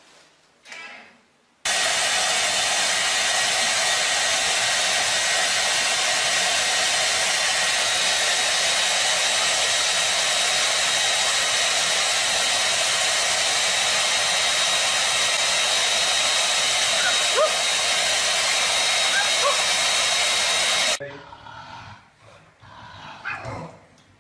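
Hand-held electric hair dryer running: a steady rush of air with a thin high whine, switched on abruptly about two seconds in and cut off suddenly near the end.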